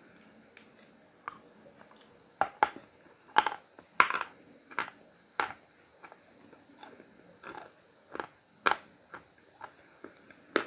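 Khrapovsky natural chalk being bitten and chewed: a run of sharp, crisp crunches, loudest between about two and six seconds in and once more near the end, with softer chewing crunches between.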